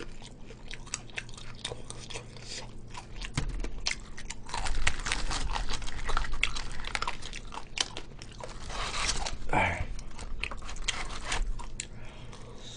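Close-up chewing and crunching of crispy breaded fried chicken, with irregular crackles of the crust as it is bitten and chewed.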